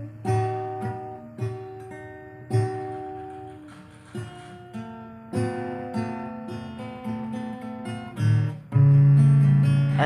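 Background acoustic guitar music: plucked notes that ring and die away one after another, ending on a held low chord.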